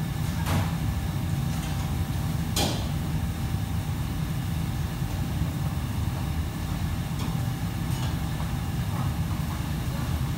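Steady low rumble of kitchen equipment running, with two sharp clatters in the first three seconds and a few faint knocks later.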